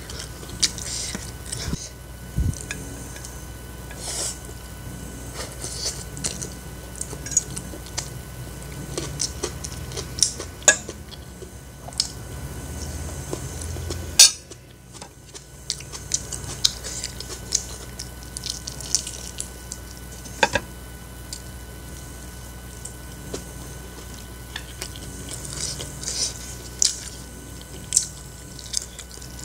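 Close-up eating sounds: a metal fork clinking and scraping on a ceramic plate of fried instant noodles, with chewing and sharp mouth clicks scattered throughout. One especially loud click comes about fourteen seconds in.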